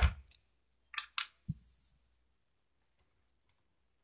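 LEGO plastic bricks clicking and knocking as a LEGO fifth-wheel trailer is handled and hitched onto a LEGO truck: about five sharp clicks, one with a low thump, in the first two seconds, and a brief rustle.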